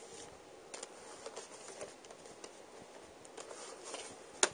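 VHS tapes being handled and set down on carpet: scattered faint taps and rustles, with one sharper click near the end.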